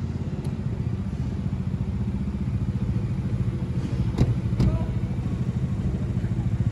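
A motor vehicle's engine running steadily with a fast, even low pulse, and two sharp clicks a little past four seconds in.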